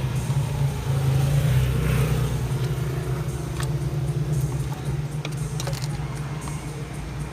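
A motor vehicle engine running steadily, with a few sharp clicks over it.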